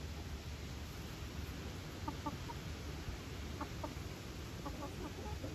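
Backyard hens clucking: short quiet clucks in small clusters of two or three, over a steady low rumble.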